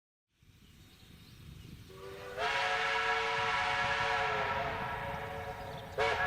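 Steam locomotive's chime whistle sounding one long blast of several tones together, followed near the end by the start of a second, shorter blast. A hiss builds up before the first blast.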